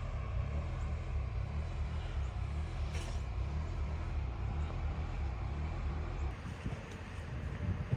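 A motor vehicle running nearby, a steady low rumble.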